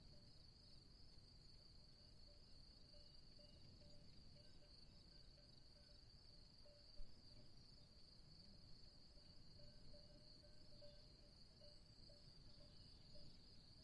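Faint, steady insect chorus, a continuous high-pitched trill, over a low rumbling background, with a fainter lower chirping that comes and goes. A single soft tap sounds about halfway through.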